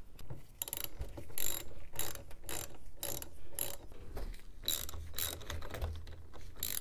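Hand socket ratchet clicking in short back-and-forth strokes as it turns a heavily corroded nut on a car battery's terminal clamp.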